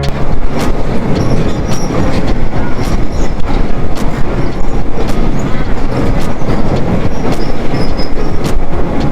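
Passenger train on the Thailand–Burma Death Railway running along the track: a steady rumble of wheels with irregular clacks over the rail joints and short, faint high squeaks from the wheels.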